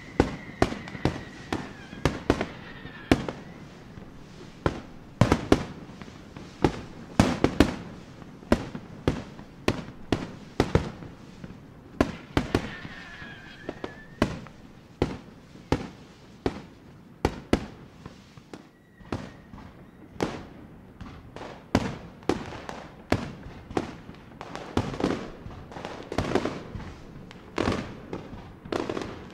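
Fireworks display: aerial shells bursting in a steady run of sharp bangs, about one or two a second, with a faint whistling glide near the start and another about midway.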